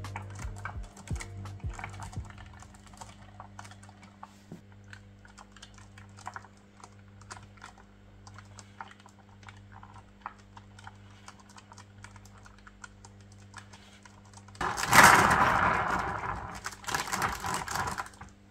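Hand-cranked rotating display stand turning: quick, irregular clicking of its laser-cut gears as the small side crank is wound, over a steady low hum. Near the end come two louder stretches of rolling noise as the top platter is pushed round by hand on its marble bearings.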